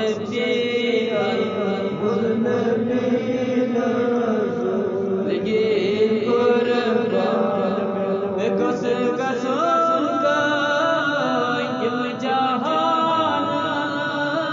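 Islamic devotional chanting by voice, without instruments: long held notes that waver and step between pitches, sung without pause.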